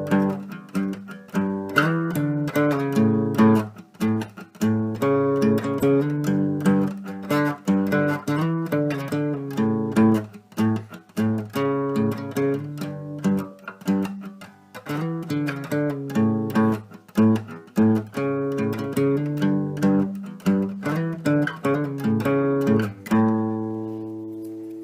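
Instrumental music on plucked strings, quick picked notes and strummed chords with no singing, ending on a chord left to ring and fade.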